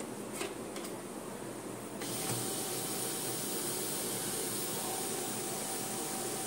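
A few light clicks of paper being handled in the tray, then about two seconds in a steady whirring hiss with a faint even hum starts: the Canon LBP6000-series laser printer's motor and fan running.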